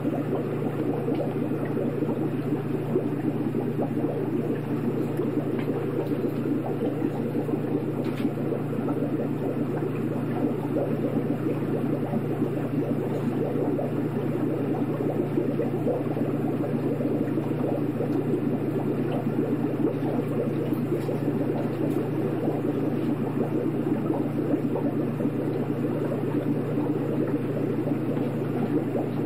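Aquarium water bubbling steadily over a constant low hum, the sound of the tank's aeration or filter running.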